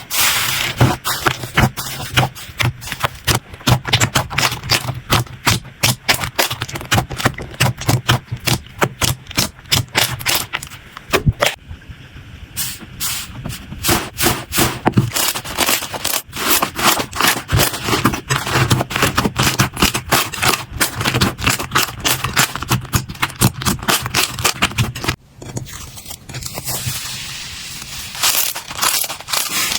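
Slime being squeezed, poked and stretched by hand, giving a dense run of quick clicks, pops and crackles.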